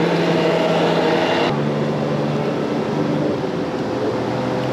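Boat engine running at a steady pitch, a constant low drone over wind and water noise; the sound shifts abruptly about a second and a half in.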